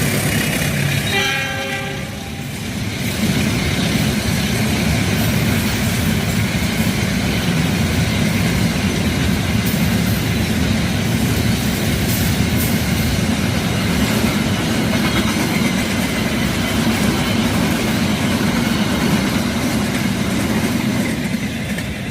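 Freight train passing: a short horn blast about a second in, then the steady rumble and rattle of the wagons rolling by, with a clickety-clack of wheels over rail joints.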